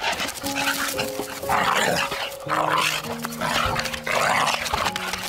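Two dogs play-fighting, a young Staffordshire–Labrador cross and a pointer-type dog, giving rough, breathy growls and huffs in several bursts about a second apart. Background music with sustained notes plays underneath.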